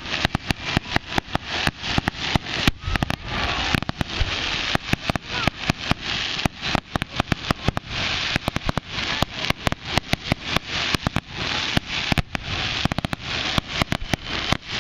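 Fireworks going off in quick succession: a continuous run of sharp bangs, several a second, with crackling between them.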